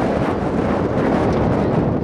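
Steady, loud wind buffeting the camera microphone, a rumbling rush that drowns out other sound.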